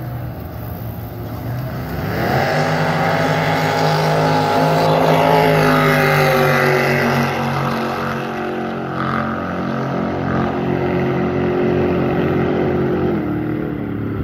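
Race jet boat's engine opening up to full throttle about two seconds in and running hard through a high-speed pass, its pitch easing slowly and then dropping near the end.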